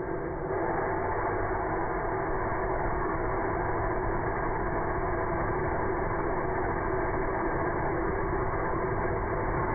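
Experimental hybrid rocket engine burning solid paraffin wax fuel with gaseous oxygen, firing steadily as a continuous rushing noise with a steady hum beneath it. It grows a little louder about half a second in, then holds even.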